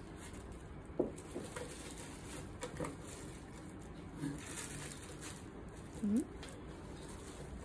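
Faint handling sounds of a damp cloth being pressed and arranged inside a cardboard box, lining it as a humid box for curing urushi lacquer. There is a light knock about a second in, and a couple of brief pitched sounds near the middle and end.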